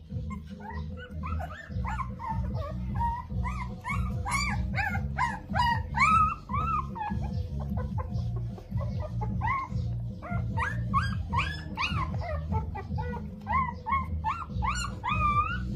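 A young puppy whimpering in many short, high whines while it is bottle-fed milk, in two runs with a brief lull midway.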